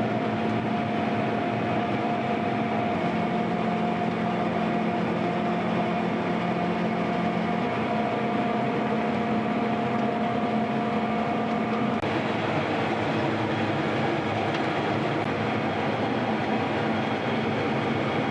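Combine harvester running steadily while cutting wheat, a constant mechanical drone with a steady whine over it.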